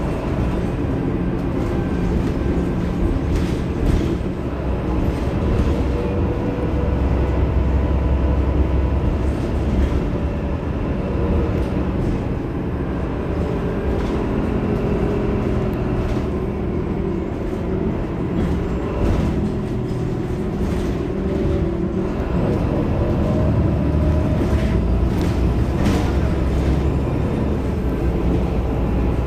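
Heuliez GX 327 city bus standing at a stop with its engine idling: a steady low running hum. A few short sharp sounds come over it.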